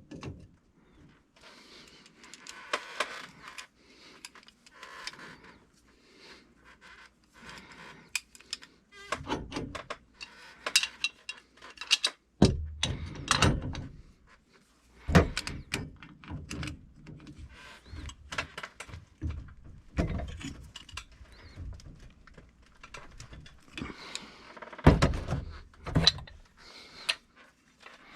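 Irregular knocks, clinks and heavier thunks of hands-on work with tools and metal parts, scattered through with no steady rhythm.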